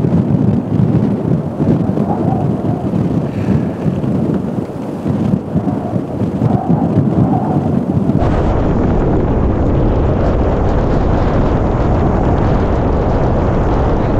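Strong wind buffeting the microphone in a mountain blizzard, loud and gusting. About eight seconds in the sound cuts to a steadier, deeper rush of wind.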